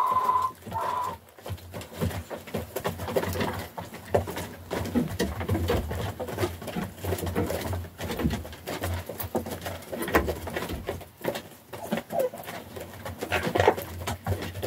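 Hens eating from a feed trough: many rapid beak taps as they peck the feed, with soft low clucking running under them.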